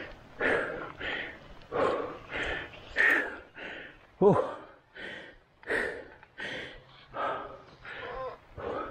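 A person panting hard in quick, regular breaths, about one and a half a second, with a short voiced groan falling in pitch about four seconds in: the heavy breathing of a cyclist pedalling uphill.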